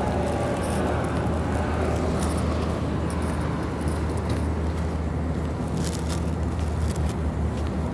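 A steady low rumble with wind noise on the microphone, and scattered faint crackles.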